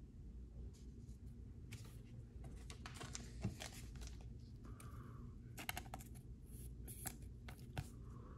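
Light handling noises: foil-wrapped trading card packs rustling and crinkling as they are picked over, with scattered small clicks and taps.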